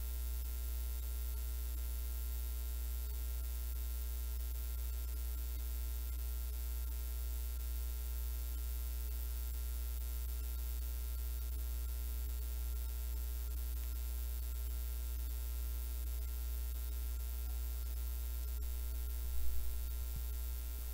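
Steady electrical mains hum with a buzz of many steady tones above it. A short louder sound comes near the end.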